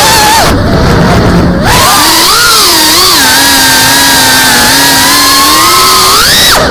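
Geprc FPV quadcopter's brushless motors and propellers whining, the pitch rising and falling with the throttle. The whine eases briefly about half a second in, climbs again, and near the end rises sharply before dropping off.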